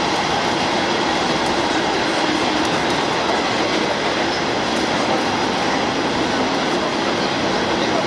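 KiHa 47 diesel railcar under way, heard from inside the passenger cabin: steady running noise of the train on the rails.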